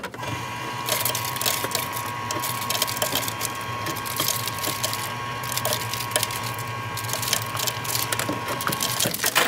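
Ice dispenser running, a steady mechanical whir with a thin whine that cuts off near the end, while ice cubes clatter into a stainless-steel tumbler.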